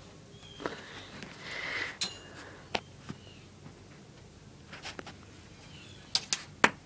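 Handheld phone being handled: scattered light clicks and taps, with a quick cluster of louder clicks near the end, over a quiet background.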